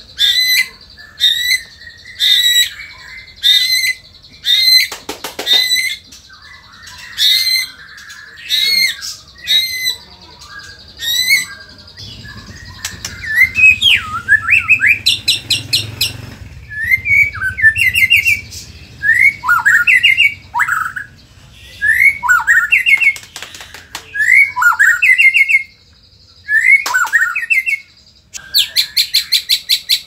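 White-rumped shama singing: a run of short repeated sharp notes, about one every 0.7 s, then quick falling whistled phrases, and a fast dry rattling series near the end.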